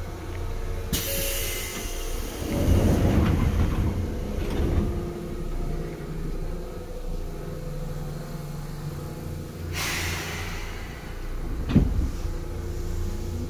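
Seibu 2000 series electric commuter train heard from inside the car: a steady low running rumble, louder and rougher a few seconds in. A hiss comes twice, about a second in and about ten seconds in, and there is a single sharp knock near the end. A motor whine starts to rise just at the close.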